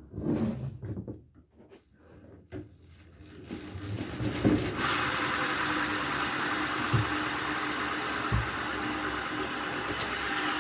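A few knocks and clicks, then a motorbike engine running steadily at idle from about five seconds in.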